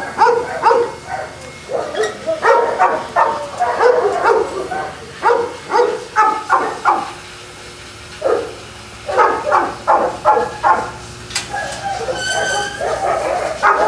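Boston Terriers barking and yipping in quick clusters of short, high barks, with a brief lull about eight seconds in.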